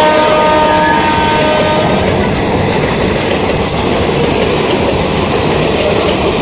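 Dual-tone horn of an Indian Railways express train, its two sustained notes fading out about two seconds in, followed by the steady rush of the train passing at speed.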